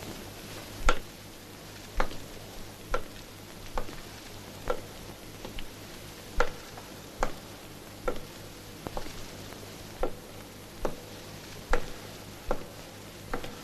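Unhurried footsteps of leather dress shoes on a hard floor in a bare, tiled hall, a little more than one step a second. Each step is a sharp click with a short ringing echo, over a faint steady hiss.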